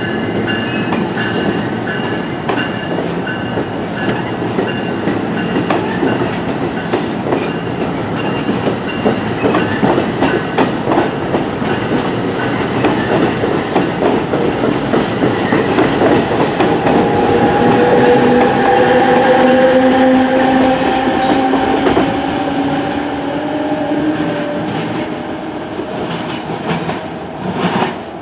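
NJ Transit double-deck Multilevel coaches rolling past at close range, wheels clicking over the rail joints in a steady run of clacks. Over the second half a whine rises slowly in pitch as the passing sound swells to its loudest, then the noise fades near the end as the last car clears.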